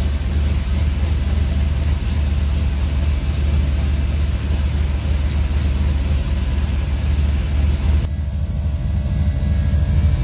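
Turbo LS V8 engine idling steadily, running on its newly wired twin-pump fuel system.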